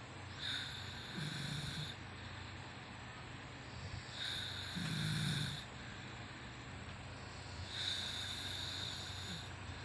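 A sleeping woman snoring: three snoring breaths about three and a half seconds apart. The first two carry a low rattling rumble.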